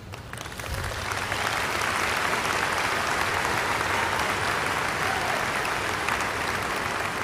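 A large crowd applauding, building up over about the first second and then holding steady.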